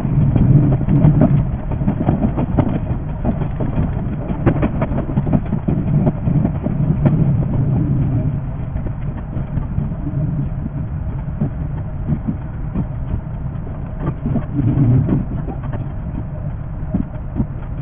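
JR 381 series limited express electric train running, heard from the cab: a steady low rumble of wheels and traction motors. Over it comes a dense, irregular clatter of clicks from the wheels over rail joints, the rumble swelling about a second in and again near the end.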